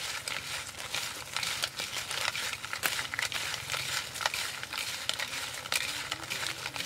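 Crisp fried diving beetles clicking and rustling against each other and a plastic plate as fingers rake through them: a fast, irregular run of small dry clicks.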